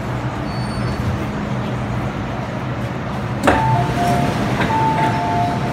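Metro platform screen door chime: a sharp click, then a two-tone high-low chime sounding twice, over the steady low hum of the station and train.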